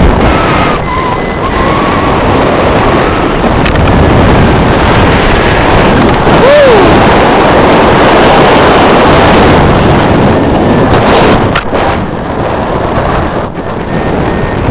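Wind rushing over the microphone of a camera on a paraglider in flight: a loud, steady rush, easing a little near the end.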